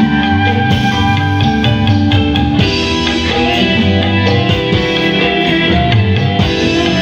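A live dangdut koplo band plays loudly through a large stage sound system, with a guitar melody over the drum kit and kendang.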